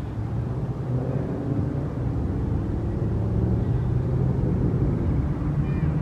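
Steady low rumble of a motor vehicle engine running, with a faint pitched hum that drifts slightly in pitch. A faint high bird note comes near the end.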